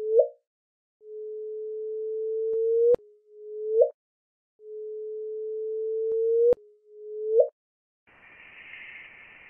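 Sonified gravitational-wave chirp from two black holes merging, played as a pure electronic tone. A low tone swells louder for about two seconds and breaks off with a click, then a short whoop sweeps quickly upward, the signature of the black holes spiralling in and colliding. The pattern plays twice after a first whoop at the start, and a steady hiss begins near the end.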